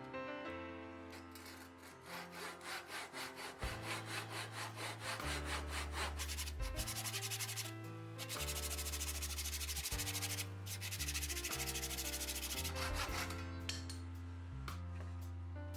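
Abrasive rubbing on wood, like sanding or filing, in fast repeated strokes that turn into steadier continuous rasping about halfway through, with a brief pause. Background music with piano and bass plays throughout.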